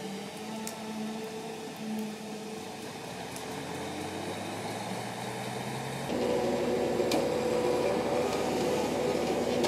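Excavator-mounted timber processor head working a log: diesel engine and hydraulics running, with shifting tones and one tone rising slowly. About six seconds in the sound changes abruptly to a louder, steady mechanical hum of the cable-logging line as the carriage travels along the skyline cable.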